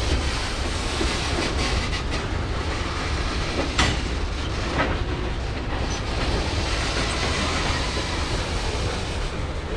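A cut of freight cars rolling on the rails during switching, wheels clicking over the track with a steady rumble, and two sharp clanks about four and five seconds in. The cars are being slowed by the locomotive's brakes alone, with no brakes set on the cars.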